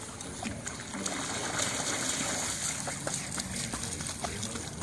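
Pugs paddling and wading through shallow floodwater: steady splashing and sloshing with small scattered ticks of water, a little louder from about a second in until past the middle.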